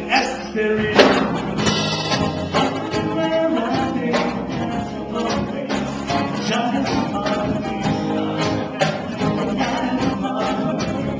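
Live band playing a song, with a singer's voice over the instruments and frequent percussion hits.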